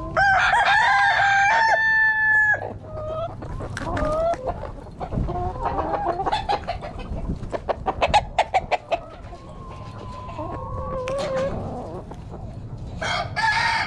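A rooster crows loudly, one long held crow at the start. Hens cluck and call in between, with a patch of scuffling taps midway, and another crow begins near the end.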